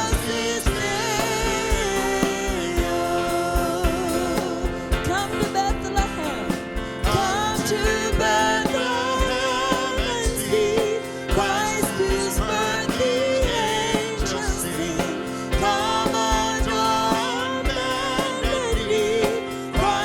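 Live church worship music: singers leading a song over a band, with a steady drum beat.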